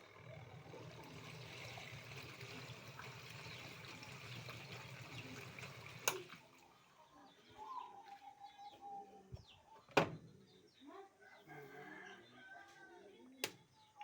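Water running with a low steady hum, which stops with a sharp click about six seconds in. After that, birds chirp and a dove coos, with two more sharp clicks.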